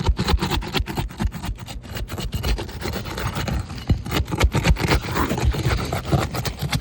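Asphalt roof shingles being pried up to break their glued-down seal strip: a rapid, irregular run of scraping and crackling clicks.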